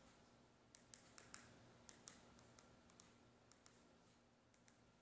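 Faint computer mouse button clicks, a dozen or so at an irregular pace, as a password is picked out letter by letter on an on-screen keyboard.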